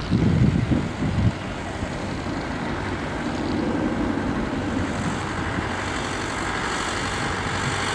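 Airbus A330-200 jet airliner taxiing, its engines at idle giving a steady rumble and hiss, with a high whine growing louder from about five seconds in. Gusty low buffeting in the first second or so.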